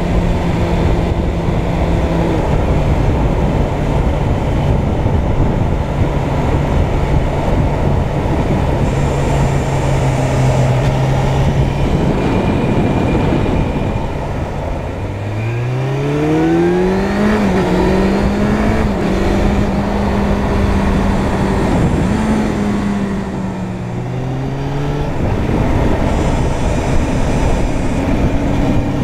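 Suzuki Bandit 600's inline-four engine under way, heard through heavy wind and road noise. About fifteen seconds in the engine note rises sharply as it revs up, holds there, then drops back lower a few seconds before the end.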